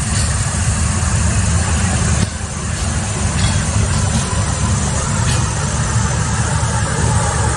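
Passenger coaches of a Bangladesh Railway intercity train rolling past: a steady low rumble of wheels on the rails, with a few sharp clicks.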